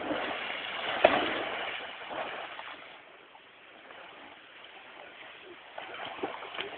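A jumper's body hitting the river water feet-first from a high cliff, a sharp splash about a second in, followed by a rushing wash that fades out over the next two seconds.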